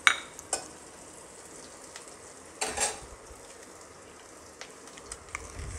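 Onions and spices frying in oil in a steel kadhai, a faint steady sizzle, with a flat steel spatula clacking against the pan twice near the start and scraping through the mixture once about halfway.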